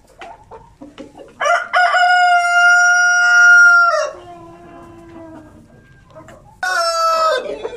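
Light Sussex rooster crowing: one long crow starting about a second and a half in, held on one pitch and then dropping lower as it trails off. A second crow starts near the end.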